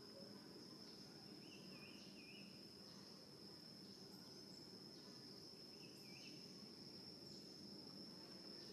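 Faint, steady high-pitched insect drone, one unbroken tone, with two brief faint warbling calls, one about a second and a half in and one about six seconds in.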